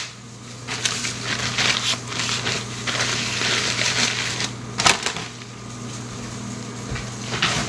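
Kitchen food-preparation noise: a few seconds of crunching, crackly rustling, then a sharp knock about five seconds in and another near the end, over a steady low hum.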